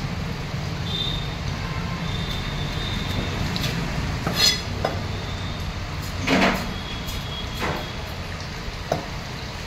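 Heavy curved knife chopping through a snakehead fish onto a wooden log block: a few sharp knocks spread over the second half, over a steady low traffic-like rumble.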